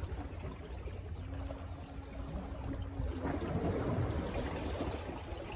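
Seawater lapping and sloshing against shoreline rocks, with a louder wash a little past halfway.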